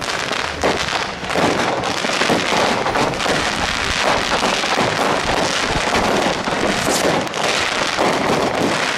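Many New Year's Eve fireworks going off at once: a dense, unbroken crackling and popping of rockets and crackling shells.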